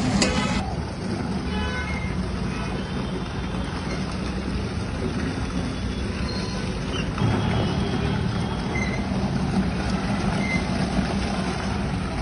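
Steady street traffic noise, with vehicle engines running.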